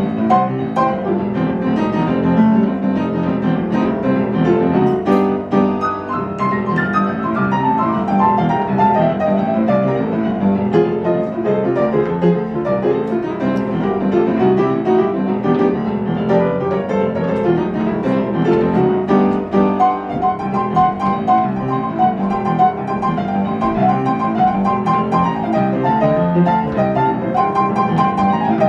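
Upright piano played live in a jazz style: a steady flow of chords under right-hand lines, with a run of notes falling in pitch about six seconds in.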